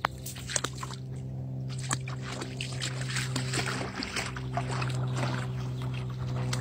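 A dog splashing into a river and swimming out, water sloshing and splashing in uneven bursts that thicken from about two seconds in. A steady low hum runs underneath.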